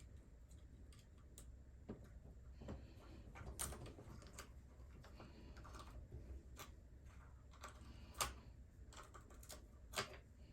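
Faint, irregular small clicks and light taps of plastic RC car parts and a small tool being handled during disassembly, with a few sharper clicks about a third of the way in, near the end, and once more just before it.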